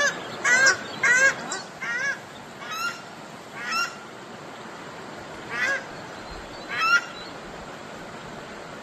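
Waterfowl calling over a rushing creek: a quick run of short, arched calls at the start, then single calls about once a second, thinning out toward the end. The creek water runs steadily underneath.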